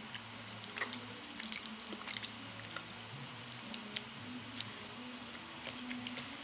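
A person biting and chewing a snack close to the microphone, with scattered short sharp crackles, over a faint steady low hum.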